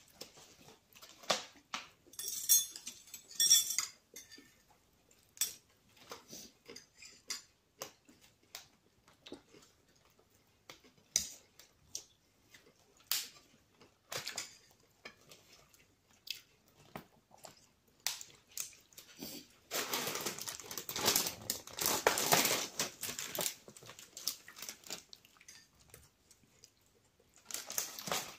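Chewing and mouth sounds close to the microphone, with the crackle of a plastic charcuterie packet being opened and handled. The crackling is loudest and densest for a few seconds past the middle and comes again briefly near the end.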